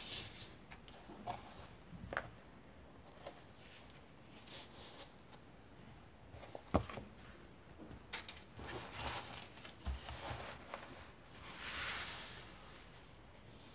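Vintage paper pages and fabric layers of a thick handmade junk journal being turned and handled: soft rustling and crinkling of old paper with small clicks. There is a sharp tap about seven seconds in and a longer rustle near the end.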